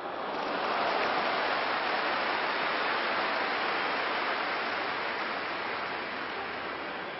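Large football stadium crowd noise swelling within the first second and then slowly dying away, the crowd reacting to a goalmouth chance that the goalkeeper has gathered.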